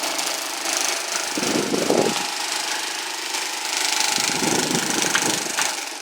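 Mallory Boreal electric fan running with a steady motor hum and a loud vibrating rattle, because its blades are misaligned and out of balance. Low rumbling swells in twice, and the sound begins to die away near the end.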